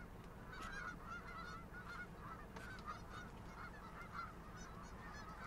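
A large flock of geese honking, many faint calls overlapping continuously.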